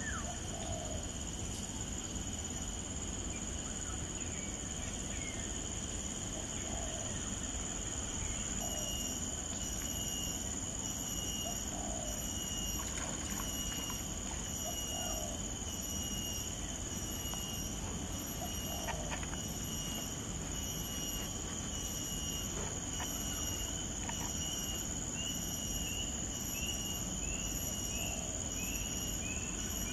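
Outdoor wetland background: a steady noise bed with faint animal calls every second or two. About a third of the way in, a regular run of short high chirps starts; near the end the chirps slide in pitch.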